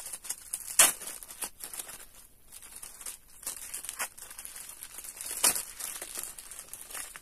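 Plastic wrapper of an individually wrapped Charm Cooling Fresh sanitary pad crinkling and rustling as it is unwrapped. Sharp crackles stand out about a second in and again near five and a half seconds.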